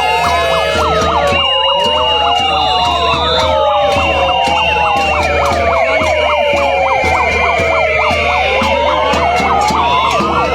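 Many sirens wailing at once, rising and falling out of step with one another. They are joined by held high-pitched tones and frequent sharp bangs, the din of a noise-making protest crowd.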